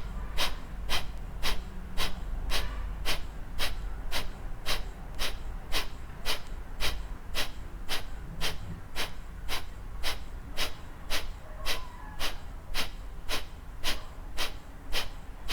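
Kapalbhati breathing: short, forceful exhalations snorted out through the nose in a steady rhythm, about two a second.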